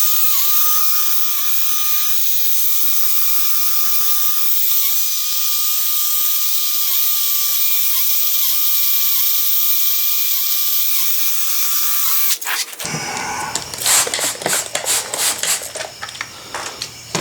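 Electric drill spinning a 1500-grit sanding disc against a plastic headlight lens, a steady motor whine that sags briefly again and again as the disc is pressed on. About 12 seconds in the drill stops, and scattered clicks and knocks of handling follow.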